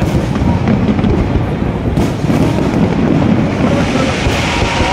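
Fireworks exploding overhead in a dense, continuous low rumble of bursts, with a sharper bang about two seconds in. A crackling hiss builds from about four seconds in.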